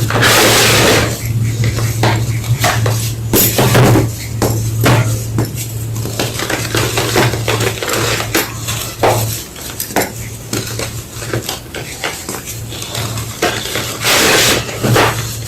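Homemade gym chalk block being crushed, crumbling in irregular crunches, with the longest, loudest crunch at the very start and another near the end. A steady low hum runs underneath.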